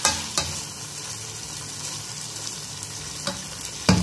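Uncooked rice sizzling in hot oil with cumin seeds as a metal spoon stirs it around the pot: a steady frying hiss with a few spoon knocks and scrapes against the pot, the loudest near the end.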